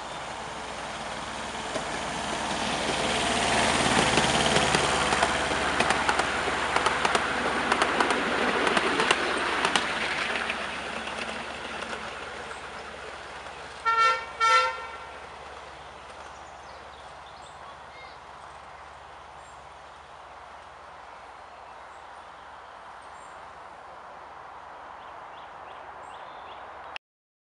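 A 7¼-inch gauge miniature railway train with passenger carriages running past, its wheels clicking over the rails, growing louder and then fading as it moves away. About halfway through, the locomotive's horn gives two short toots.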